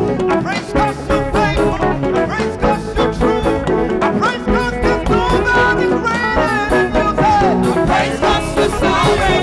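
Live praise band playing an upbeat song, with drums keeping a fast, steady beat under a moving melody line.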